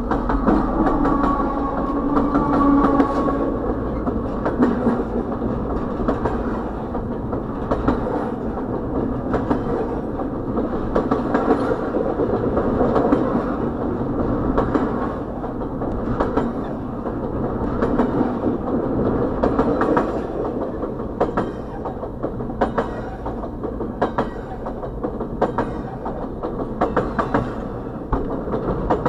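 Diesel freight train rolling past close by, heard from inside a stopped car. A locomotive's steady engine hum fades over the first few seconds into the rumble of container and trailer cars, with wheels clicking over the rail joints, the clicks sharper and more frequent in the second half.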